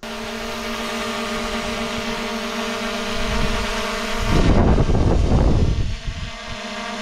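Small quadcopter drone hovering close overhead, its propellers making a steady whine. From about four to six seconds in, a loud rush of air drowns the whine as the drone is directly above, then the whine carries on.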